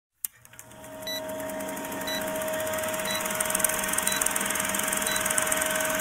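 Vintage film countdown leader sound effect: a film projector running with a steady whirr and hiss, plus crackle, and a short high beep once a second as the numbers count down. It starts with a click and grows louder over the first second or two.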